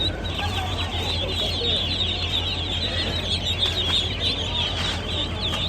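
A crowd of poultry chicks peeping all at once, a dense, unbroken chorus of high chirps over a low steady hum.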